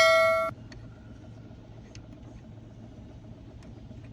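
Ford EcoSport with its AC running: a steady low hum while the AC air-direction control is worked, the mode actuator now quiet after being air-flushed and lubricated, with only a few faint light clicks. A bell-like chime cuts off about half a second in.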